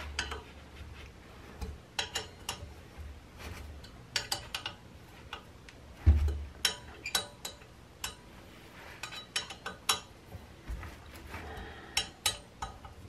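Steel Allen key turning the brake-disc bolts on a pit bike wheel hub: scattered light metal clicks and ticks as the key is fitted and turned, bolt by bolt. A single dull thump about six seconds in.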